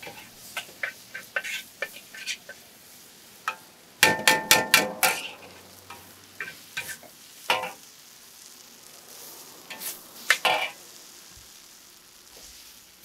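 Metal utensils clinking and knocking on hard surfaces in food preparation, with a quick run of about six loud, ringing metallic strikes about four seconds in and single knocks scattered before and after.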